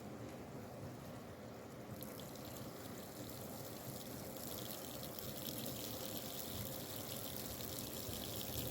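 Water pouring in a faint, steady trickle that starts about two seconds in.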